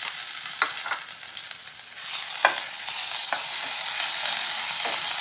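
Crushed ginger and garlic sizzling in hot oil in a nonstick frying pan, stirred with a wooden spatula that clicks against the pan a few times. The sizzle dips briefly, then grows louder about two seconds in as the paste is spread through the oil.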